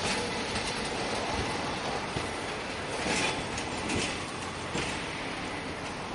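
Hakodate City Tram's Rakkuru low-floor articulated streetcar running along street track. There is a steady rolling rumble, with a few clicks from the wheels about three, four and five seconds in.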